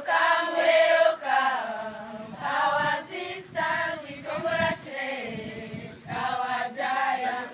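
A choir of girls singing together unaccompanied, in short repeated phrases.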